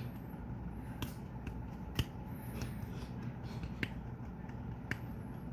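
A few sharp clicks, the loudest about two seconds in, over a steady low rumbling noise, with faint high chirps now and then.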